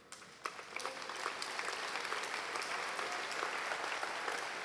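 Crowd applauding: a few scattered claps at first, filling in within about a second to steady applause.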